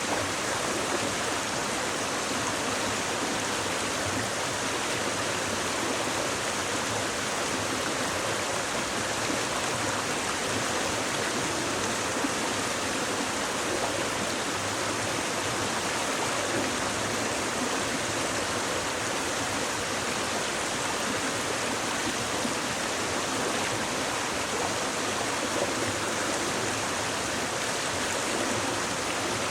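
Shallow stream babbling steadily over stones, a constant rush of running water.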